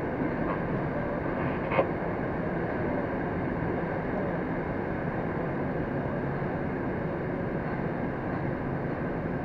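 Metro train running through a tunnel, a steady rumble of wheels on rails and traction motors heard from inside the driver's cab, with a single click about two seconds in.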